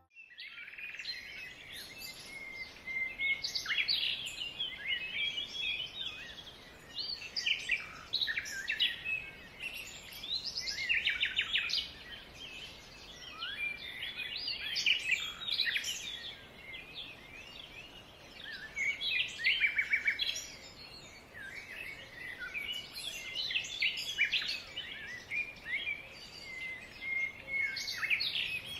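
Several songbirds singing and chirping at once, their overlapping calls running on without a break over a faint background hiss.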